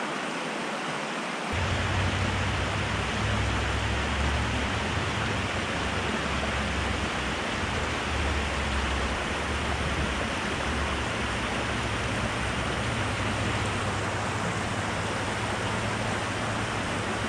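Stream water rushing steadily. A low rumble joins about a second and a half in and stays under the water sound.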